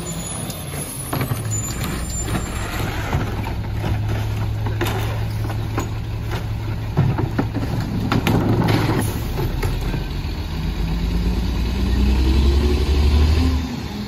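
Diesel engine of a Mack MR rear-loader garbage truck idling while trash cans are banged and emptied into the McNeilus rear hopper, with repeated knocks and thuds. Near the end the engine revs up as the truck pulls away.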